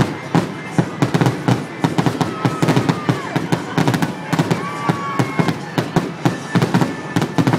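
Fireworks display: a rapid barrage of bangs and crackles from aerial shells bursting, several a second, with a few thin whistles over it.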